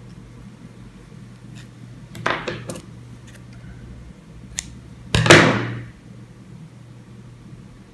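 Handling noises on a tabletop over a steady low hum: a short clatter about two seconds in and a louder, longer one about five seconds in.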